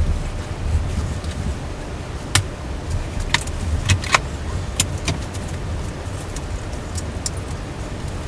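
Scattered light clicks and taps from the case side panel and its parts being handled, over a steady low rumble.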